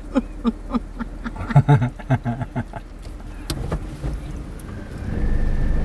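Vehicle driving slowly along a rough farm track: a quick series of knocks and rattles for the first couple of seconds, then engine and tyre rumble that grows louder about five seconds in.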